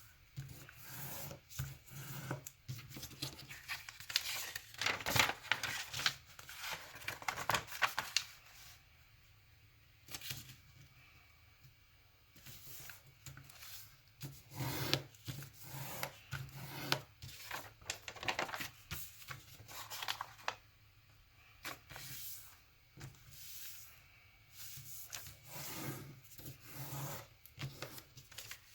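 A sheet of origami paper being folded and creased by hand: irregular rustling, rubbing and crinkling strokes, with a quieter pause roughly nine to thirteen seconds in.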